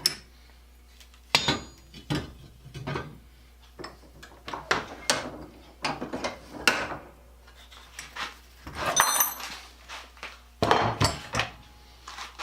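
Irregular metallic clanks and knocks of steel parts and tools being handled while a rivet is set in the treadle assembly. The strikes come one or two at a time with pauses, and are louder a little before the end.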